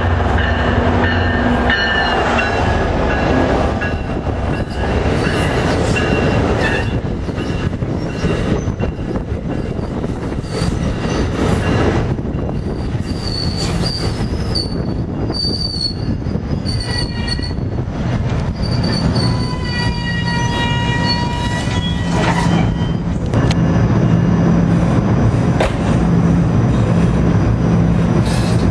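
NJ Transit PL42AC diesel passenger locomotive and its bilevel coaches passing close by, rumbling and clacking over the rail joints. The tail of the horn chord fades in the first second or two, and high wheel squeals ring out around the middle.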